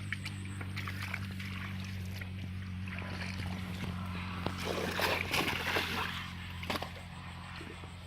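A small engine running steadily throughout, with water splashing and sloshing for a couple of seconds around the middle and a few sharp knocks.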